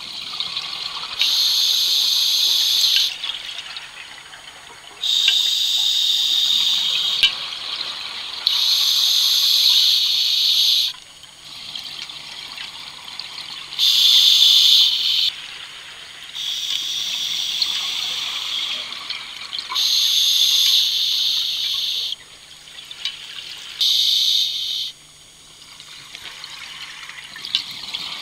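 A scuba diver breathing through a regulator underwater: repeated rushing, bubbling breaths, each one to three seconds long, about eight in all, over a faint steady low hum.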